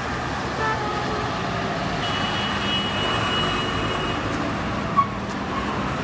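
Road traffic at a busy junction: red state transport buses and cars driving past with a steady engine and tyre rumble. A thin high whine runs for about two seconds in the middle, and a brief beep comes about five seconds in.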